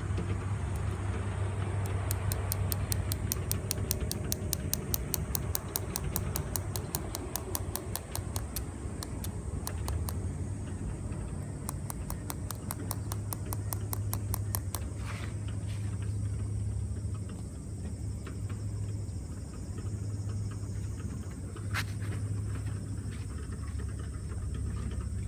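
A steady low outdoor rumble, with an insect ticking fast and evenly, about five ticks a second, through the first fifteen seconds or so. A single sharp click sounds near the end.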